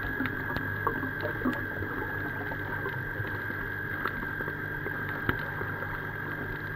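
Underwater sound picked up while filming a coral reef: faint scattered clicks and crackles over a steady low hum and a thin, constant high whine.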